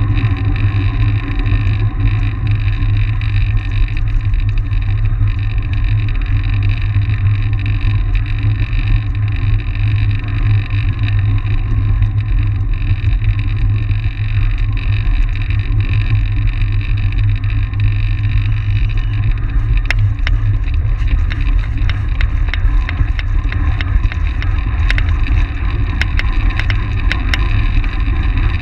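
Steady low rumble of wind buffeting the microphone of a camera mounted on a track bike riding at race speed, mixed with the tyres rolling on the track. A scattering of short sharp clicks in the last third.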